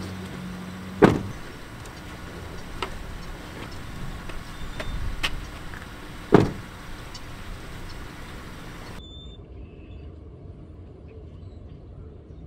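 A pickup truck's door slammed shut twice, about five seconds apart, each a sharp bang with a short ring. A quieter outdoor background follows.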